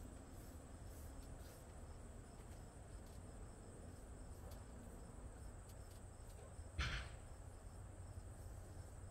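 Quiet background with a steady low hum and a faint, steady high-pitched whine. A single short knock about seven seconds in.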